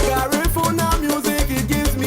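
Upbeat Latin-style background music with a steady beat, bass line and percussion.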